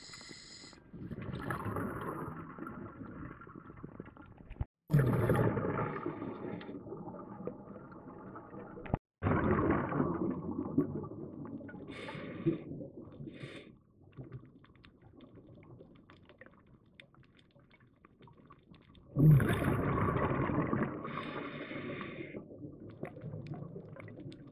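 A scuba diver's exhaled bubbles rushing from the regulator, heard underwater through the camera housing. They come in long bursts every few seconds with quieter breathing pauses between.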